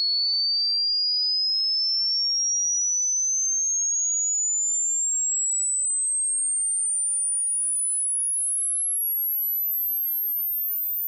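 Hearing-test pure tone (sine sweep) gliding steadily upward at a constant level, from a high whistle into the very top of the audible range. The point where it vanishes for a listener marks the upper limit of their hearing, which drops with age.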